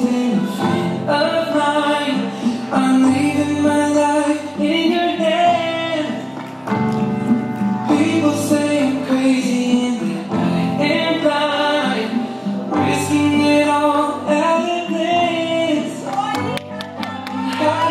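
Slow rumba dance music with a singer, played through the hall to accompany the dancers.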